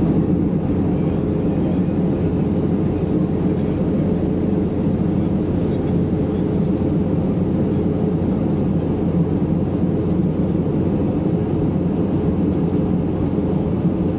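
Jet airliner cabin noise in cruise flight: a steady, low drone of engines and airflow with a faint constant hum, heard from a window seat.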